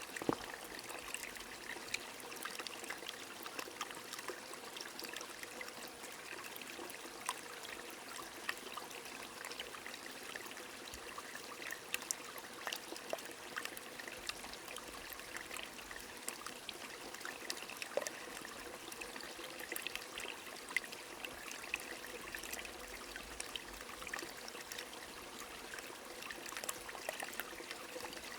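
Rain falling with a stream trickling: a steady watery hiss dotted with many small, sharp drop ticks.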